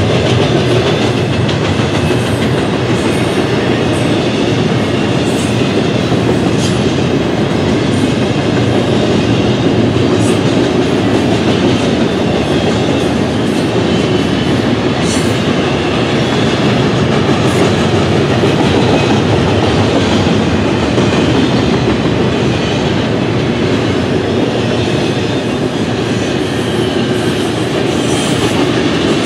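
Double-stack intermodal container train rolling past, with the loud, steady noise of its well cars' steel wheels on the rail and occasional sharp clicks.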